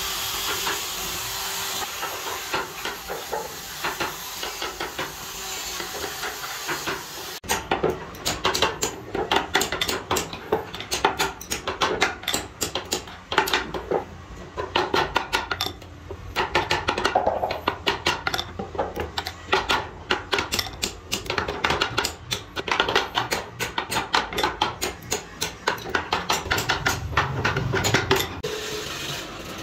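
An electric hand drill running steadily as it bores into a wooden ring. About a quarter of the way in this gives way to a hammer tapping on the wood over and over, many quick sharp taps, driving small nails into the marked holes.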